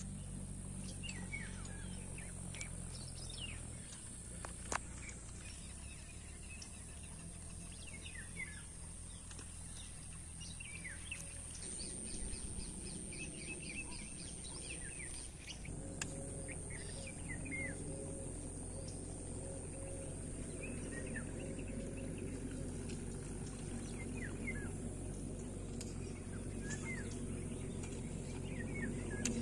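Small birds chirping repeatedly in short calls over a steady low outdoor background hum, with one sharp click about five seconds in.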